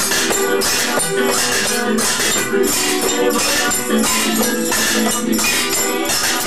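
Kitchen band playing improvised percussion: handheld shakers and rattles keeping a steady, even beat, with held tuneful notes underneath.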